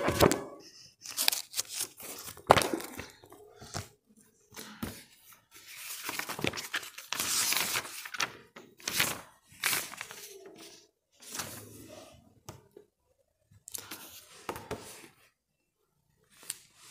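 Pages of a paperback book being leafed through and turned: paper rustling in irregular bursts, with a few sharper flaps and short pauses between.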